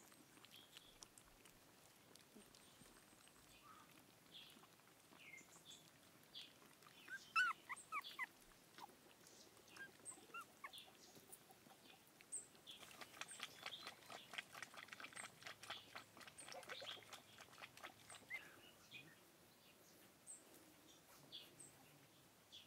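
Faint high-pitched whimpers and squeaks of young puppies: a cluster of short cries about seven seconds in, then a longer run of rapid cries in the middle.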